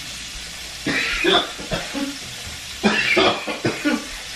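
Food frying in a pan on the stovetop, a steady sizzle, with two short bursts of indistinct human voice about a second in and again about three seconds in.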